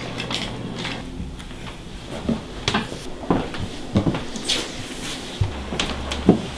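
Household handling sounds in a kitchen: scattered light knocks and clatter of things being moved and set down, over a steady low hum that drops lower a little over halfway through.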